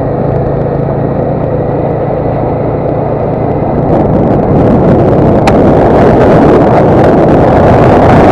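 Motorcycle engine running steadily on the move, with a low hum. About four seconds in, wind noise on the microphone grows louder and covers the engine with a rushing hiss.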